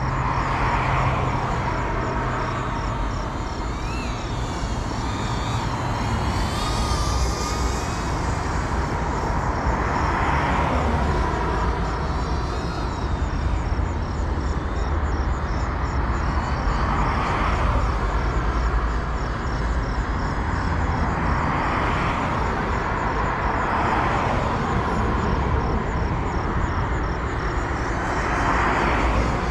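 Small 3.5-inch ducted FPV cinewhoop drone (GEPRC Cinelog 35) heard from the pilot's position: a buzzing propeller and motor whine over a steady rumble, swelling and fading again every few seconds.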